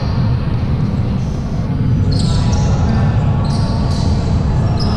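Basketball game on an indoor court: a ball bouncing over a steady low rumble, with short high-pitched sneaker squeaks on the floor from about halfway through.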